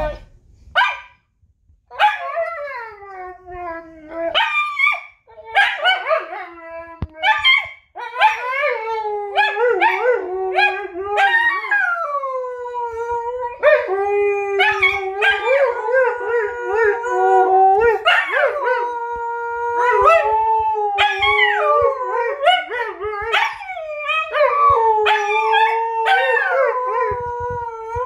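A husky howls and 'talks' in wavering, sliding howls. It starts with short broken yowls, then howls almost without a break from about eight seconds in.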